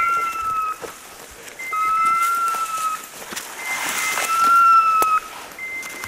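A hunting dog's beeper collar sounds its repeating two-tone point signal, a short higher beep then a longer lower tone about every two seconds, which signals that the dog is holding point. Brush rustles and twigs snap as the hunter pushes through undergrowth, loudest around the middle.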